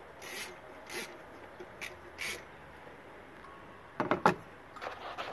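Swiss music box being wound by hand: four short raspy ratcheting strokes from its winding key, about a second apart. A few sharp knocks follow about four seconds in as the box is handled and set down.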